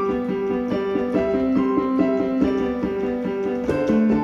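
Keyboard music with a quick, repeating figure of short notes.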